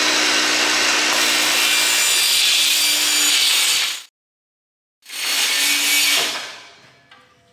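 Battery-powered DeWalt circular saw with a fine-finish, many-toothed carbide blade cutting through a multiwall polycarbonate panel, a steady loud cutting noise. It cuts off suddenly about four seconds in, comes back for about a second and then dies away.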